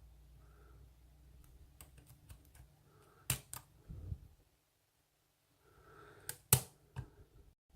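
Lock pick and tension wrench clicking against the pins of a padlock as the pins are lifted and set: scattered light metallic clicks, a few sharper ones a little over three seconds in, and the loudest about six and a half seconds in.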